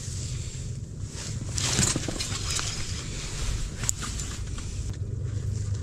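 Rustling of a padded winter jacket and the rod being handled, over a steady low rumble, with a few light clicks near four seconds in.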